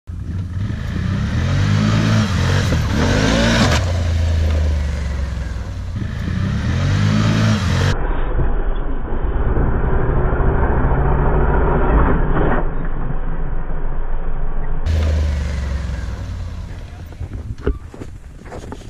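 A small motor vehicle's engine revving up hard several times and running at speed, with a few sharp knocks and rattles near the end.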